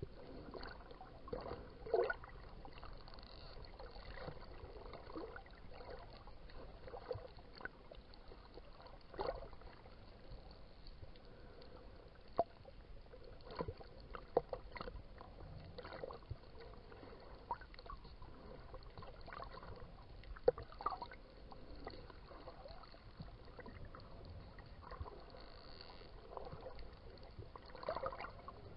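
Underwater sea ambience: a steady water hiss with many short, irregular squeaks and clicks, which come from dolphins nearby.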